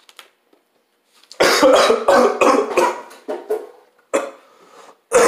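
A man coughing hard and repeatedly, his mouth and throat burning from a Carolina Reaper-coated nut. The coughs come as a fit of several from about a second and a half in, with one more about four seconds in and another near the end.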